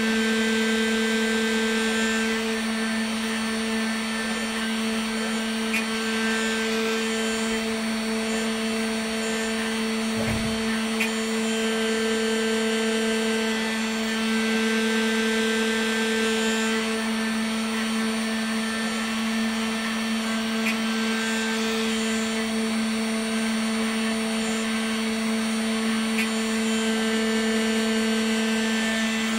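Spindle motor of a homemade CNC router running at a steady pitch as its bit mills a block of carving wax, a constant hum with a fainter hiss above it. A brief low thump about ten seconds in.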